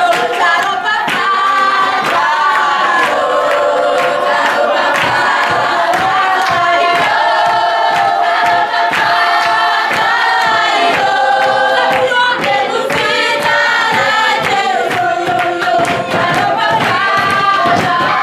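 A group of children singing together, with hand-clapping keeping a steady beat of about two claps a second.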